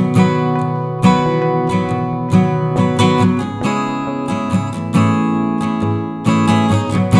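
Background music: acoustic guitar strumming chords with a steady rhythm.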